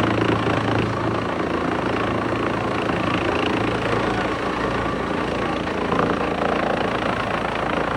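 Wood chipper running steadily, a continuous machine drone with a low hum that eases slightly about a second in.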